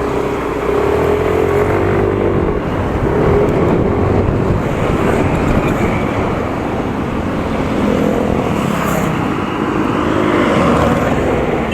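Motorcycle engine running while being ridden, its pitch rising and falling with the throttle, over a steady rush of wind and road noise.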